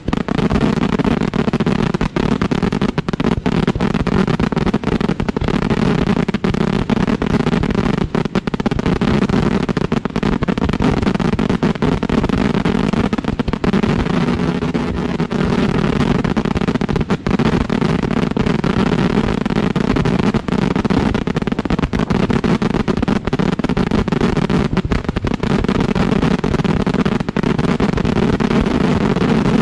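Dense, continuous barrage of firework shells firing from mortar tubes at close range, launch bangs following one another with no pause: the closing finale of a pyrotechnic display.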